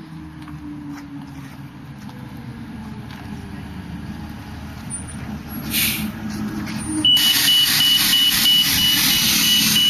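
Yosemite Valley shuttle bus engine running as the bus pulls in, with a short air-brake hiss about six seconds in. About a second later a loud air hiss starts together with a fast-repeating high beep.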